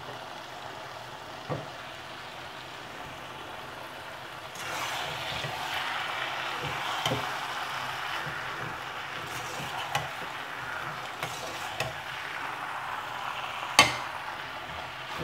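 Chicken chow mein sizzling in a wok while noodles are stirred and tossed through the sauce with a metal spatula. The sizzle grows louder about four seconds in, and the spatula knocks against the wok a few times, hardest near the end.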